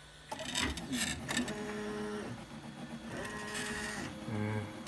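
Stepper motors of a homemade 3D printer built from CD-ROM drive mechanisms whining as the print head and bed move. Each move is a tone that rises, holds and falls, and there are a few clicks about a second in, as the printer lays down the first outline of a print.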